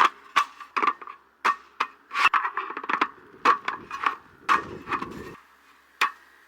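A series of sharp clicks and knocks at uneven intervals, with a scraping rustle about four and a half seconds in, from objects being handled.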